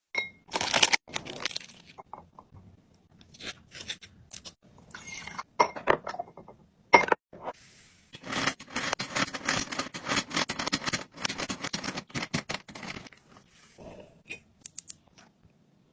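Grocery packaging being handled: crinkling and tearing, with a few sharp knocks of items being set down, and a dense stretch of crinkling in the middle.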